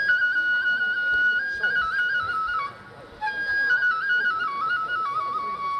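Kagura flute (a Japanese transverse bamboo flute) playing a melody that flicks back and forth between neighbouring notes as it steps downward. It breaks off briefly for breath about three seconds in, then resumes and settles onto a long held note near the end.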